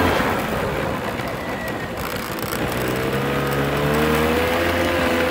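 Pit bike engine running while ridden around a dirt track, eased off at first, then revving back up with its pitch rising over a couple of seconds before levelling off near the end.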